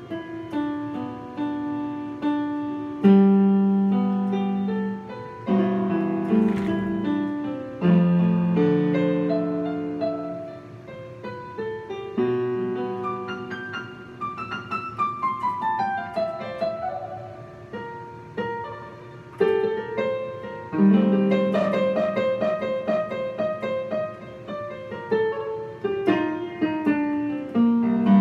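Electronic keyboard played with a piano sound: slow, held chords struck every few seconds, with runs of single notes, one falling run about halfway through and a rising run near the end.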